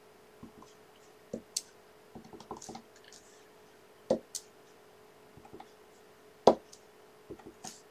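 Clear acrylic stamp block tapped on an ink pad and pressed down onto paper on a craft mat: a scatter of soft clicks and knocks, the two loudest about four and six and a half seconds in.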